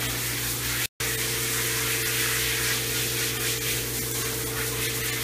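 Water spraying from a bathing hose onto a dog in a grooming tub: a steady hiss with a steady low hum beneath it. The sound cuts out completely for a split second about a second in.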